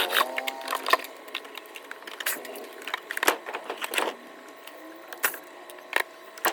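Irregular clicks, taps and knocks of hands working on the parts of an electric fan during a repair. A humming tone falls in pitch and dies away about half a second in.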